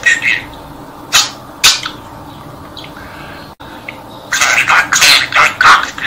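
Blue budgerigar mimicking human speech in its budgie voice, reciting the Turkish tongue-twister "Karga karga gak dedi, çık şu dala bak dedi": a few short syllables in the first two seconds, then a quick run of words in the second half.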